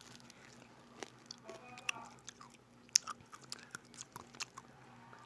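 Someone chewing a sweet close to the microphone: scattered small wet clicks and smacks of the mouth, the sharpest about three seconds in.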